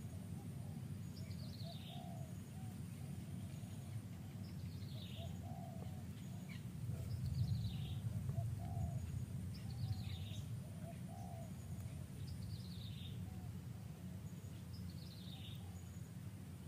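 Wild birds calling: a high, falling whistled note repeated every two to three seconds, with a soft, lower cooing call repeating alongside it. Both sit over a steady low background rumble.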